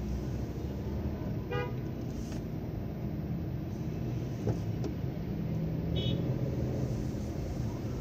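Slow, dense road traffic: a steady low rumble of car engines, with a short car-horn toot about one and a half seconds in and a brief, higher-pitched beep around six seconds.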